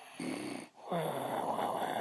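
A woman snoring in her sleep: a short snore just after the start, then a longer, louder one beginning about a second in.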